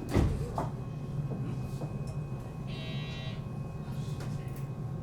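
Electric commuter train running on the rails, a steady low hum, with two sharp knocks in the first second and a short high buzzing tone about three seconds in.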